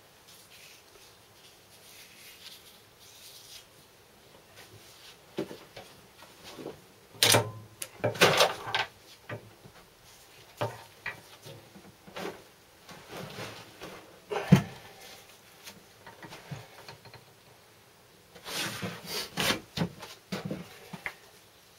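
Irregular metal clunks, knocks and scrapes as the piston of a Wolseley WD2 engine is worked up and out of the crankcase, with quiet gaps between; a cluster of rattling knocks comes near the end.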